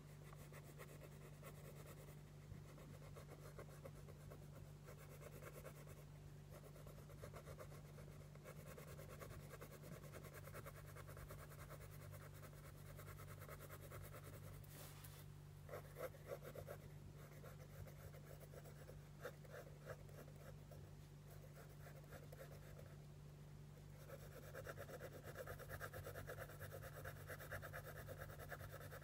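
Faint scratching of a pencil sketching on paper, over a steady low hum; the strokes grow busier and more continuous near the end.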